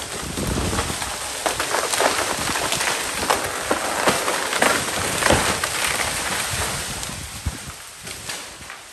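Dry brush and branches crackling and snapping, a dense run of cracks and rustling that swells in the first second and fades away near the end.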